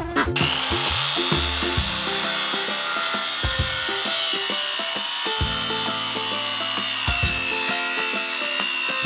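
Porter-Cable abrasive chop saw running and cutting through steel pipe: a steady high whine that sinks slightly in pitch as the wheel bites into the metal. Background music plays over it.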